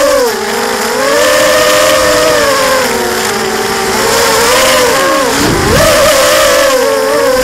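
Motors and propellers of a 250-size FPV racing quadcopter whining, heard from its own onboard camera, the pitch rising and falling with the throttle. About five seconds in the pitch drops sharply as the throttle is cut, then jumps back up as the throttle is punched.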